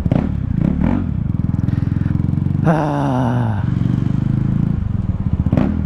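KTM Duke 390's single-cylinder engine through an open pipe, running with an even pulsing beat. About two and a half seconds in, the revs jump suddenly and then fall away over about a second.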